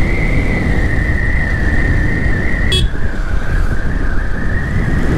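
Yamaha FZS V3's single-cylinder engine running steadily as the motorcycle rides along, with dense rumble and rushing air, and a thin high whine that sags slightly in pitch about three seconds in, just after a short click.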